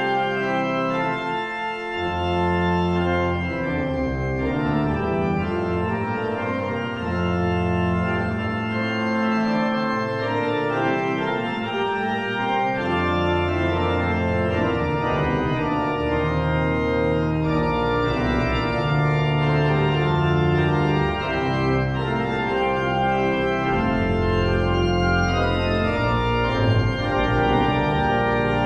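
Church pipe organ playing the postlude: sustained chords that change every second or two, with deep pedal notes coming and going beneath them.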